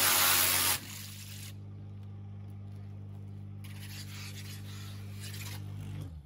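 Pressure washer spraying the slats of a roller shutter, then the trigger is released under a second in: the spray hiss stops while the machine's motor keeps up a steady low hum, which cuts out just before the end.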